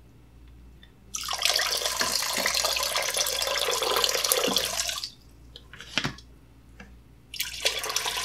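Water poured from a plastic pitcher into a plastic bucket of diluted strawberry jam, a steady splashing pour lasting about four seconds from about a second in, then a second pour near the end. A short knock falls between the two pours.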